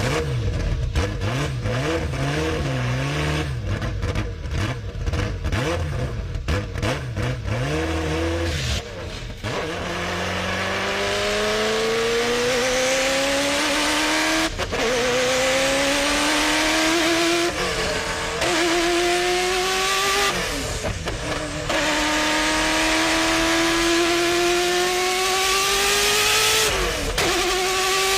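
Ferrari F40 LM's twin-turbo V8 running rough and uneven at low revs. About ten seconds in it pulls away, climbing in pitch through the gears, with the revs dropping at four upshifts.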